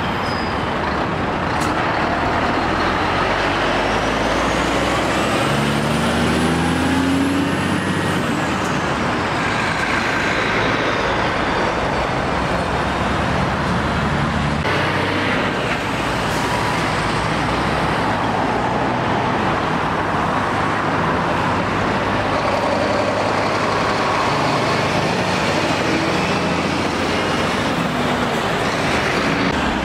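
Articulated diesel lorries driving past one after another, engines running and tyres on the road, over steady traffic noise. A high whine rises and then falls during the first several seconds.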